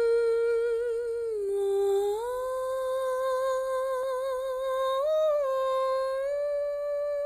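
A woman's voice humming a slow wordless melody in long held notes with light vibrato. It dips about a second and a half in, then climbs back and steps up briefly near the middle. This is the hummed opening of the song.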